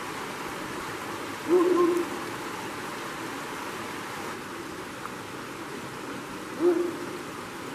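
Two short, low hooting calls, the first about a second and a half in and the second, shorter, about five seconds later, over a steady hiss of the shallow stream running in its stone channel.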